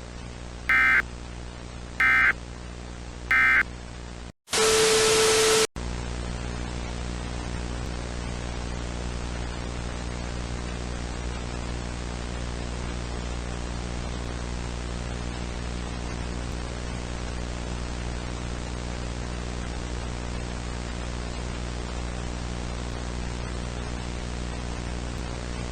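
Emergency Alert System end-of-message: three short bursts of digital data tones a little over a second apart. Then a loud burst of static with a steady tone lasts about a second, followed by steady static hiss over a low buzzing hum.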